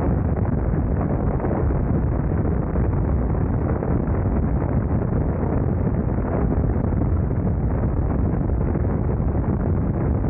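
Steady rush of wind buffeting the microphone of a BMW R nineT Scrambler motorcycle at highway speed, mixed with the bike's engine and road noise.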